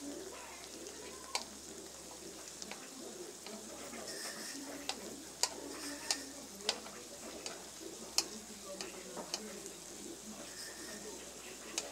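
Sticks of food shallow-frying in oil in a metal wok, a steady sizzle, while a metal slotted turner moves them about, scraping and clicking against the pan. Several sharp clicks, most of them in the middle.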